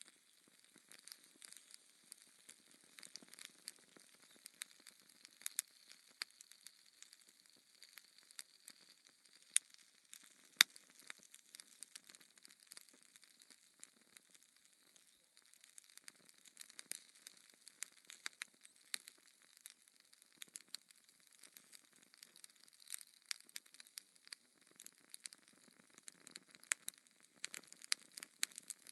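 Fireplace fire crackling: a faint hiss with many irregular sharp pops and snaps, two of them louder, about ten seconds in.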